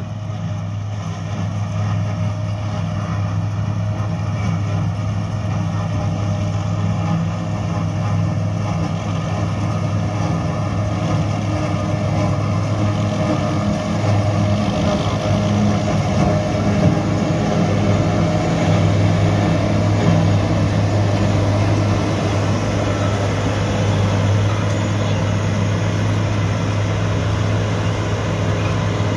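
Claas Jaguar self-propelled forage harvester chopping grass for silage alongside a John Deere tractor and silage trailer. The heavy engines give a steady low drone that grows louder over the first half and then holds.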